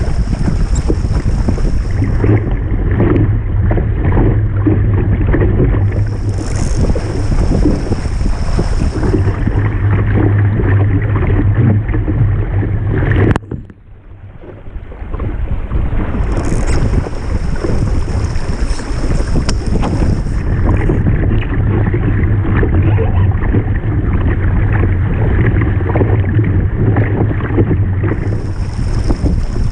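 Wind buffeting the camera's microphone over the rush of water along a Topaz sailing dinghy's hull as it sails, with a higher hiss that comes and goes every few seconds. About halfway through the sound suddenly drops away, then builds back over a second or two.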